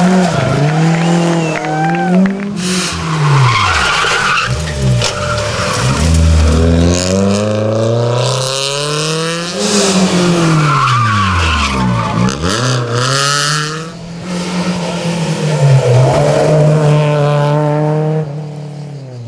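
Rally car engines revving hard, climbing through the gears and dropping on the lift and downshifts, with tyre squeal as the cars are driven at speed past the spectators.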